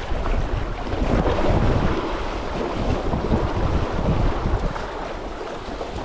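Wind buffeting the camera microphone in uneven gusts over the wash of sea waves.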